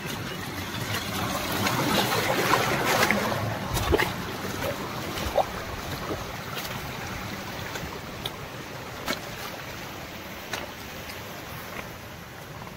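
Stream water rushing and splashing over sandstone in a small rain-fed cascade, loudest a few seconds in and then fading. A few short sharp clicks sound over it.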